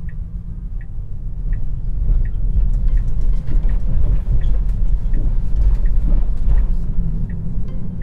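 Road and tyre rumble inside a 2020 Tesla Model 3's cabin as it crosses a railway crossing; the rumble grows louder about two seconds in, with scattered knocks. A turn-signal indicator ticks steadily, about three ticks every two seconds.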